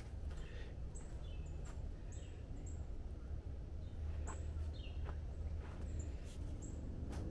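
Birds chirping: about ten short, high calls, each sliding down in pitch, scattered over several seconds above a steady low rumble.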